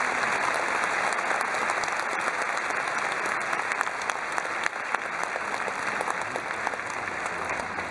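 Large audience applauding steadily, a dense patter of many hands clapping that eases off slightly near the end.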